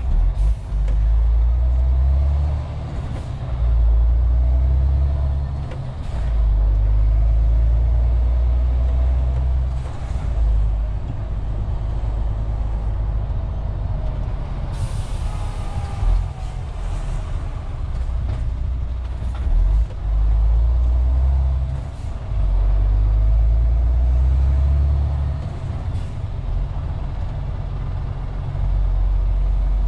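MAN TGX 470 truck's straight-six diesel engine running under way, heard inside the cab, its low drone swelling and easing as the throttle comes on and off. About halfway through there is a short hiss of compressed air from the truck's air brake system.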